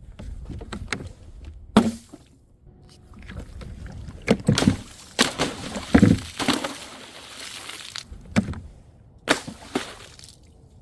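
A series of sharp impacts, about seven at irregular intervals, as liquid-filled objects are dropped and burst, each followed by splashing and sloshing liquid.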